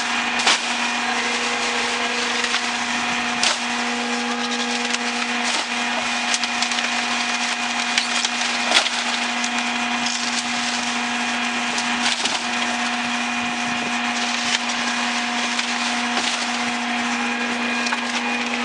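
Mack MRU garbage truck with a Leach 2R3 rear-load body, its hydraulics running with a steady whine, broken by several sharp cracks and snaps as trash is crushed in the hopper.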